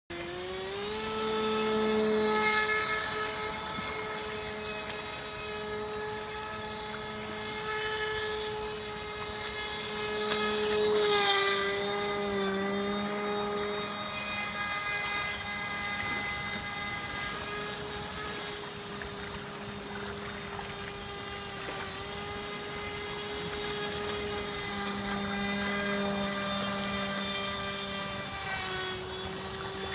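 RC airboat's electric motor and air propeller running with a steady high whine. The pitch rises at the very start and wavers briefly about twelve seconds in. The motor runs on a 3S lipo battery.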